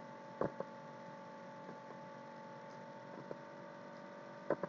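Steady faint electrical hum in the recording, with a few short faint clicks about half a second in, about three seconds in and near the end.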